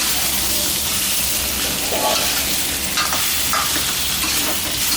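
Catfish pieces frying in oil and red curry paste in a pan, with a steady sizzle and a few short scrapes of stirring.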